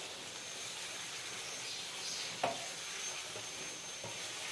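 Macaroni and cheese sizzling in a frying pan over a portable gas stove, stirred with a wooden spatula, which knocks sharply against the pan about two and a half seconds in and more lightly near the end.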